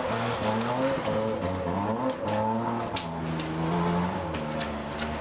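A small truck's engine running, its pitch rising and falling slightly, with a few faint clicks over it.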